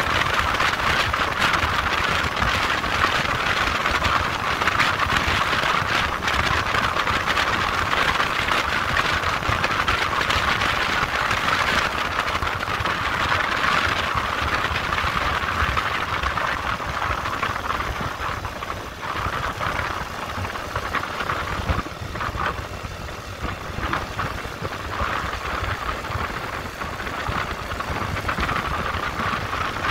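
Motorcycle running on the move: a steady, noisy rush with the engine underneath, easing off for a few seconds past the middle before building again.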